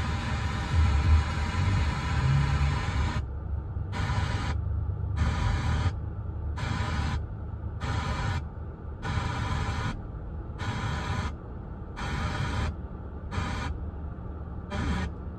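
Car FM radio being stepped up the dial between weak stations, playing hiss and static. After about three seconds the sound switches roughly once a second between full hiss and a muffled, top-cut hiss as the radio changes frequency. A low rumble runs underneath.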